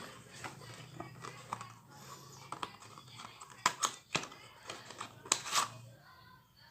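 Scattered plastic clicks and handling sounds of small handheld nano mist sprayers being picked up and their power buttons pressed while they are tested. There are a few sharper clicks a little past halfway and again near the end, over a faint steady low hum.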